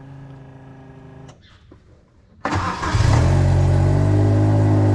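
An engine running steadily at a moderate level, fading out after about a second. About two and a half seconds in, a much louder engine comes in with a rush of air noise and then runs steadily at high speed.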